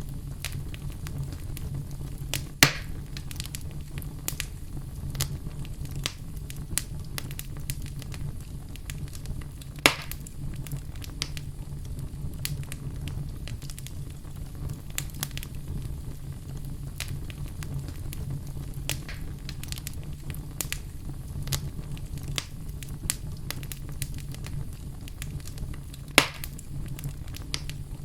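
Fire burning in a fireplace: a steady low rumble of flames with frequent small crackles, and three loud sharp pops about 2.5 s, 10 s and 26 s in.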